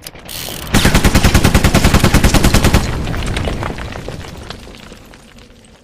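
Rapid machine-gun fire sound effect: a loud, fast run of shots starting under a second in and lasting about two seconds, then dying away over the next few seconds.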